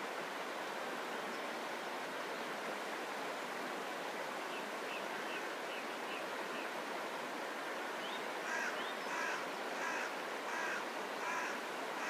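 Steady rush of a shallow river flowing over and around stepping stones. About halfway through, a small bird repeats a short high note several times, and over the last few seconds a crow caws about six times in a row, louder than the water.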